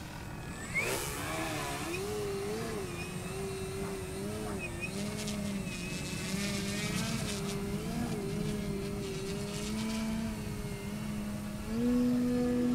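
Radio-control aerobatic plane, a 3DHS Extra 330SC, flying overhead, the drone of its motor and propeller. The pitch sweeps up sharply about a second in as the throttle opens, wavers up and down through the manoeuvres, then steps up higher and louder near the end.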